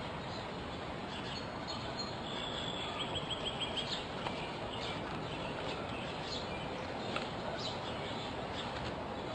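A bird singing over steady outdoor background noise. About two seconds in, a high held note runs into a quick string of short notes. A few faint chirps follow.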